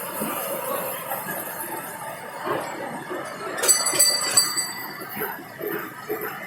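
A small bell jingling briefly, with a few sharp metallic strikes ringing out just past the middle, over a busy background.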